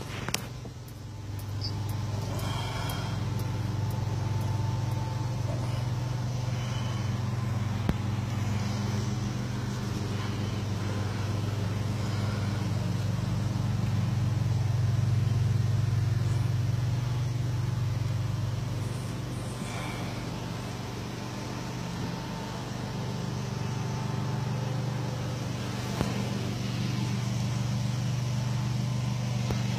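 Tow truck's engine idling, heard inside the cab: a steady low hum that grows a little louder about halfway through, then eases back.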